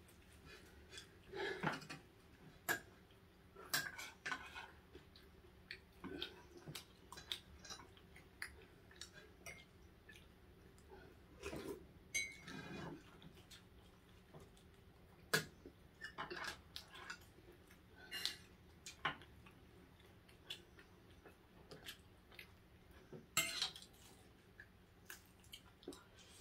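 Light, scattered clicks and clatter of tableware during a meal, irregular and sparse, with a few sharper knocks about halfway through and near the end.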